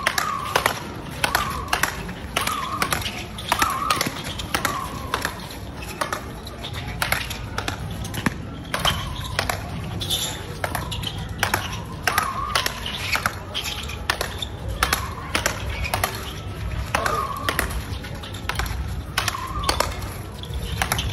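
Speedball rally: a tethered ball struck back and forth with paddle rackets, sharp cracks coming fast and irregular, about two a second.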